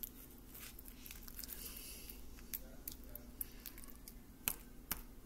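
Old, separated slime being stirred with a thin stick in a small plastic tub as activator is mixed in: faint squishing with small irregular clicks and taps, a few sharper taps near the end.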